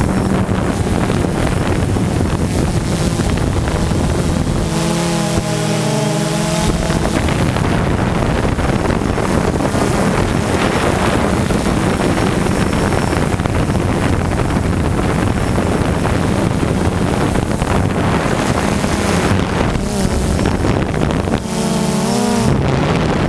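Quadcopter drone's motors and propellers buzzing steadily, heard from the camera carried on the drone, with wind rushing over the microphone. The motor pitch wavers up and down briefly about five seconds in and again near the end.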